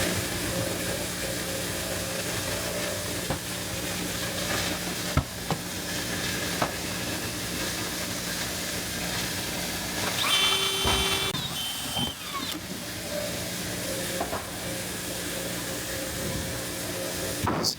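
Mixflow grain dryer running: a steady hiss with a hum of steady low tones underneath, a few light clicks, and a brief high-pitched warble about ten seconds in.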